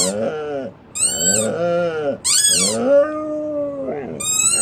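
A squeaky dog toy squeaked three or four times, each squeak answered by a Siberian husky's long, wavering howling calls that rise and fall in pitch, the longest about midway. The husky howls in response to the toy's squeaking.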